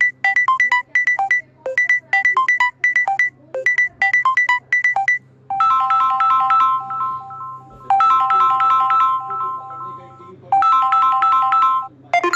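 Samsung Galaxy A50s ringtone playing through the phone's speaker. For about five seconds it is a run of quick, short, bright notes in repeating groups. It then changes to longer held notes at three pitches, repeated in three phrases.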